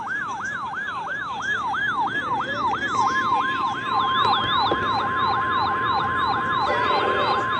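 Weather alert receiver sounding its siren alarm for a new warning: an electronic tone sweeping up and down about two and a half times a second. About three seconds in, a steady high tone joins it, the NOAA Weather Radio 1050 Hz warning alarm tone that comes before a flash flood warning message.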